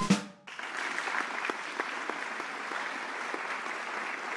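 A small audience clapping steadily, starting about half a second in.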